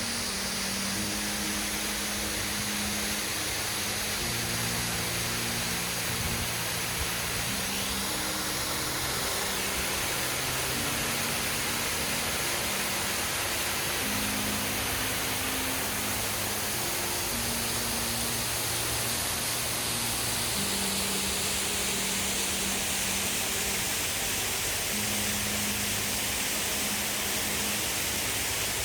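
Waterfall roar: a steady rush of falling water. Slow, low background music notes change every second or two underneath it.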